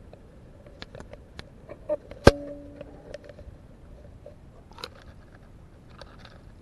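Fishing line running through the fingers as an underwater camera rig is hauled up by hand, carried down the line into the camera housing as scattered sharp clicks and knocks. One loud knock a little over two seconds in rings on briefly as a short hum.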